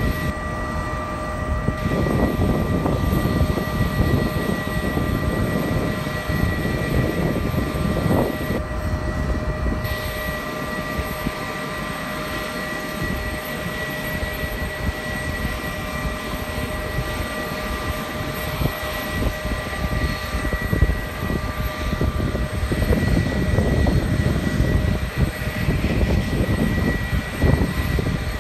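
Steady turbine whine holding several high tones, from parked Sikorsky CH-53E Super Stallion helicopters during pre-flight checks, over a ragged low rumble.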